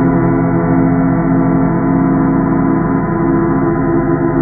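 Sonification of the Sun's vibrations: a steady, dense drone of many held tones layered over one another, gong-like, with no beat or strike.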